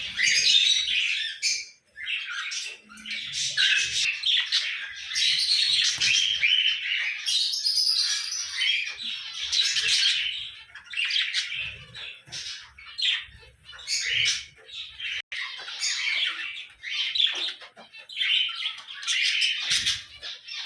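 Several cockatiels calling together, many overlapping high calls in runs with short breaks.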